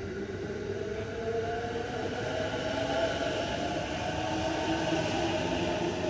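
Electric commuter train moving through a station: a whine of several tones from the traction motors over the noise of wheels on rails, growing louder.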